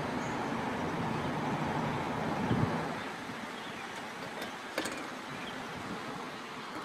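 Steady background traffic hum that drops a little after about three seconds, with a soft thump midway and a faint click.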